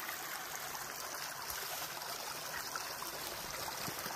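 A mountain creek running low, its water flowing with a steady, even rush.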